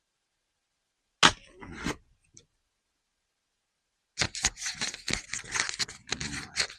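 Packaging being torn open and crinkled by hand: a sharp knock about a second in, then a dense run of crackly tearing and rustling from about four seconds in.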